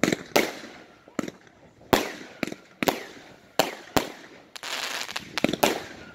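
Fireworks going off: a string of sharp bangs from bursting rockets and firecrackers, about a dozen over six seconds, at irregular intervals, with a short crackling stretch about four and a half seconds in.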